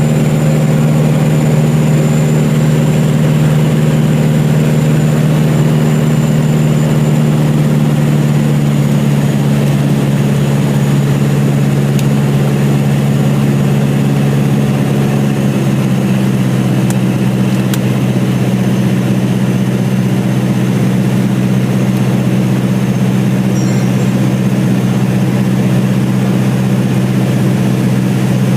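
Light aircraft engine of a Cessna 177RG Cardinal, a four-cylinder Lycoming IO-360, running steadily with its propeller. The engine note drops slightly in pitch about halfway through, as the power is eased back.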